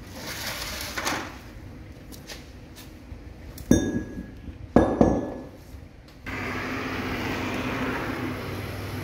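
Two sharp metallic clanks with a short ringing, about a second apart, as metal engine parts are handled while the front timing plate is fitted to a diesel engine block. Near the end a steady mechanical hum starts abruptly.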